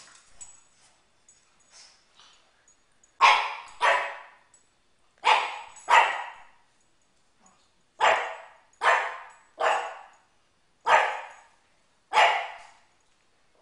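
Pug barking in alarm at balloons: nine barks, several in quick pairs, with pauses of about a second between them, after about three seconds of quiet.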